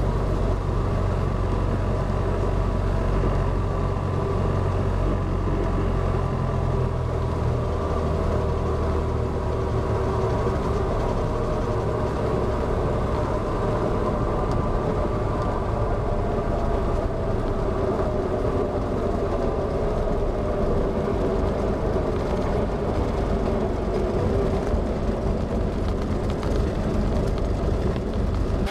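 Cessna 172SP Skyhawk's four-cylinder engine running steadily with wind and rumble while the plane rolls along the runway. The low rumble eases after about seven seconds as the plane slows.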